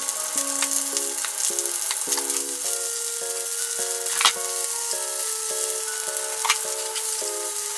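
Komatsuna and asparagus sizzling in hot oil in a frying pan, with a couple of sharp clicks partway through. A light background melody plays over it.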